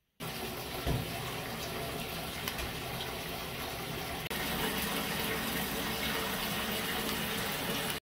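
Tap water gushing steadily into a bathtub as it fills. It starts suddenly, breaks off for an instant about four seconds in, then carries on slightly louder.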